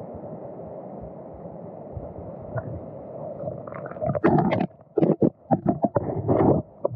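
Steady underwater rush of a mountain stream heard through a submerged camera. About four seconds in, a cluster of loud knocks and sloshing breaks out as a released amago trout bolts away from the hand past the camera.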